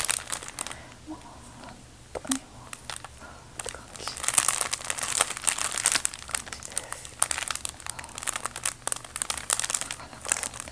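A bag being crinkled and crumpled by hand, in irregular crackling bursts that are busiest from about four to six seconds in and again later.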